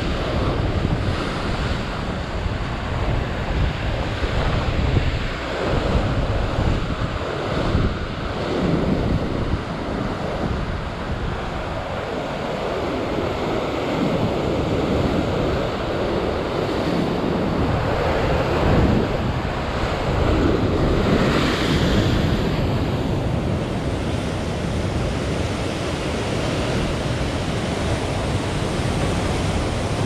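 Rough sea surf breaking and washing against a rock ledge in repeated surges, with wind buffeting the microphone.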